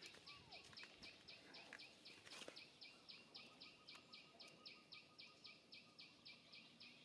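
Faint outdoor ambience: a high chirp repeated evenly about four times a second, with a couple of faint bird calls near the start.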